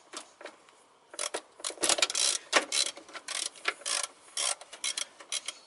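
A quick, irregular run of metallic clicks and clatter from gloved hands and tools working at a car engine's throttle body, starting about a second in.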